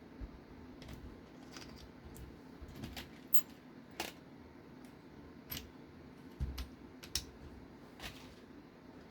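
Small plastic and metal RC car parts clicking and tapping as they are handled and fitted by hand, here the rear slipper clutch being put back on. Irregular sharp clicks at a slow pace, with a soft thump about six and a half seconds in.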